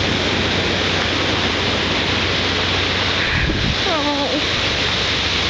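Steady rush of ocean surf on a beach.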